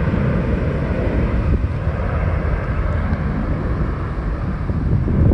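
Jet airliner engine noise, a steady rumble that eases slightly, mixed with wind buffeting the microphone.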